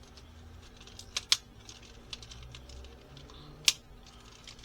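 Hard plastic parts of a large transforming robot figure clicking and knocking as it is handled and its joints worked: scattered small clicks, two sharp ones close together about a second in, and a louder single click near the end.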